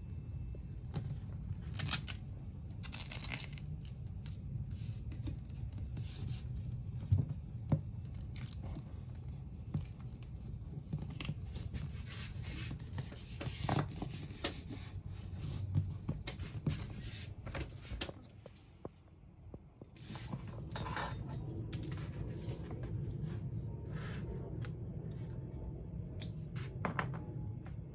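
Smart Tiles peel-and-stick vinyl tiles being handled, with backing paper peeled and torn off in short, irregular pulls, over a steady low hum.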